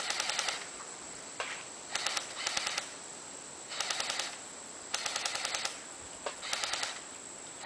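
CYMA M14 airsoft electric rifle firing in short full-auto bursts, about six bursts of rapid clicking shots, each lasting about half a second, with a second or so between them.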